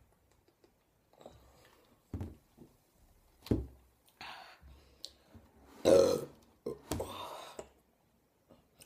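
A woman burping repeatedly, a series of about five belches brought up by the gas from drinking cola, the loudest about six seconds in.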